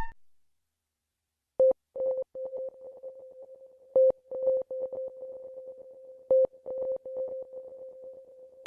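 Sparse electronic background music. After about a second and a half of silence, a single steady held tone comes in over a pattern of clicks, with a louder click roughly every two and a half seconds.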